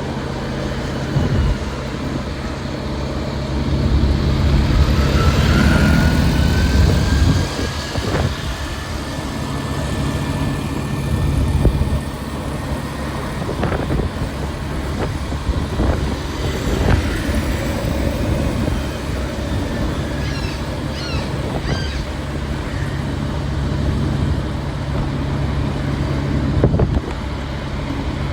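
City street traffic: a steady rumble of passing vehicle engines and tyres, with a rising whine about five seconds in, scattered knocks, and a few short high squeaks a little past the middle.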